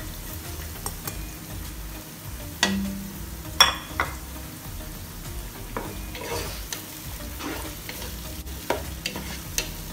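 Sliced onions and whole spices sizzling in oil in a pot while being stirred with a wooden spatula. A few sharp knocks stand out, the two loudest about three seconds in, with lighter ones later.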